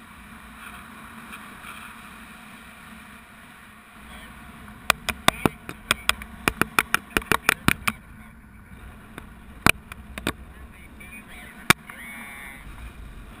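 Wind rushing over a helmet-mounted GoPro during a paragliding flight. About five seconds in comes a rapid run of sharp clicks and knocks, around six a second, lasting about three seconds, followed by a few single clicks.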